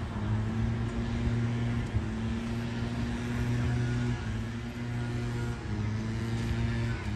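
A steady low engine hum with a pitch that shifts slightly every second or two, over general outdoor background noise.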